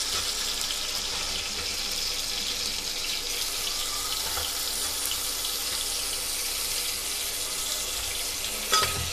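Sliced onions frying in hot ghee in an aluminium pot, a steady hiss. A few sharp clinks come in near the end.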